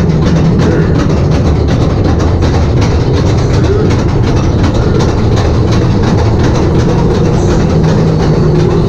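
Ore-car train of a dark-ride mine coaster rolling along its track, heard from aboard: a loud, steady rumble.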